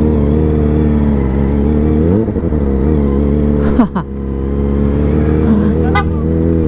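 Inline-four sport motorcycle engine running at low speed, with a short rising rev about two seconds in and a sharp throttle blip that falls away just before four seconds. A brief high-pitched beep comes about six seconds in.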